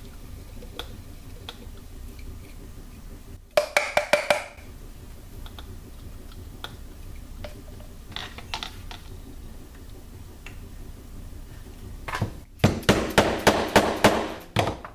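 Dead-blow mallet striking a wooden dowel rammer to pack powdered delay mix (potassium nitrate and sugar slowed with baking soda) into a PVC rocket-motor tube. There is a quick run of about five knocks around four seconds in, a few light taps around eight seconds, and a steady run of about eight knocks near the end.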